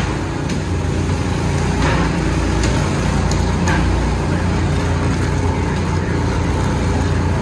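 Onboard sound of a drift kart sliding round an indoor track: a steady low rumble from the kart, with a few short sharp noises in the first four seconds.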